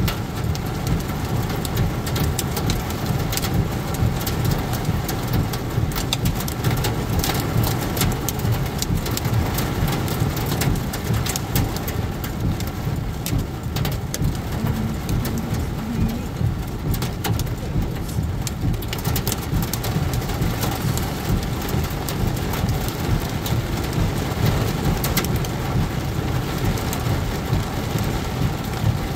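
Heavy rain pelting a moving car's roof and windshield, heard from inside the cabin: a dense, steady hiss of drops with many sharp individual hits, over a low rumble of tyres on the wet road.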